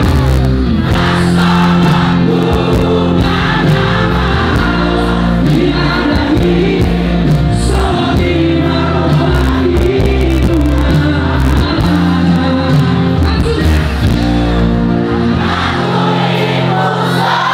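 Loud live band music with a large crowd singing along together, like a big choir. The bass drops out near the end.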